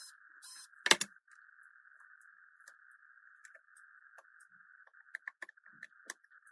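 Light metallic clicks and taps of a small screwdriver and tiny phone screws being handled, with a sharper click about a second in and a quick run of clicks near the end, over a faint steady hiss.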